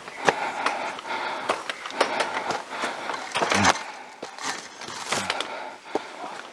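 Footsteps of a hiker walking a bush track, irregular knocks and scuffs about two a second.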